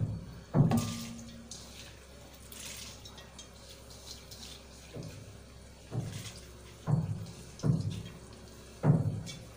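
Soaked, drained moong dal tipped and scraped by hand from a plastic colander into a pot of watery masala: a string of soft wet thuds and plops, one near the start and five more close together in the second half, with a quieter wet rustle between.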